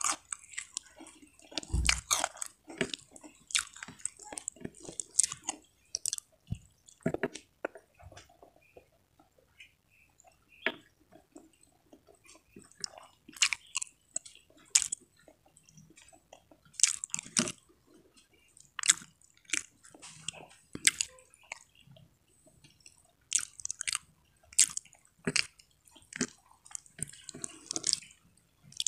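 A person chewing and biting mouthfuls of rice and stir-fried water spinach, close-miked, with wet mouth sounds and some crisp crunches in irregular bouts. A quieter stretch comes about a third of the way in.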